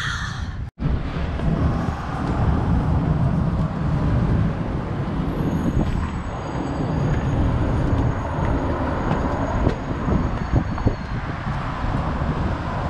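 Road traffic passing close by on a multi-lane road, heard from the footpath alongside: a dense, steady rumble of car engines and tyres.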